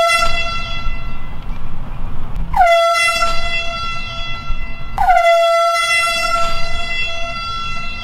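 Handheld compressed-gas air horn blasted three times in a row, each long blast opening with a quick drop in pitch before holding one steady, piercing note.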